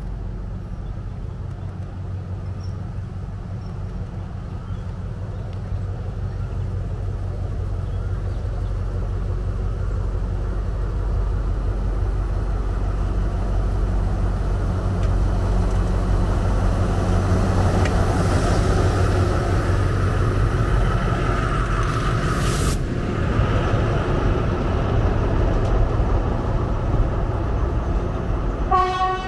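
A large vehicle's engine running steadily, growing louder over the first half. A short sharp hiss like an air-brake release comes about seven seconds before the end, and a brief horn toot sounds at the very end.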